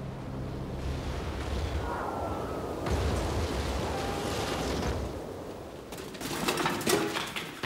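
Battle sound effects: a steady low rumble of distant gunfire and explosions, with a quick cluster of sharp gunshots near the end.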